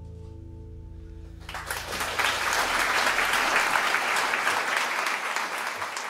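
A band's held final chord dies away, and about a second and a half in a live audience breaks into applause, which carries on and starts to fade near the end.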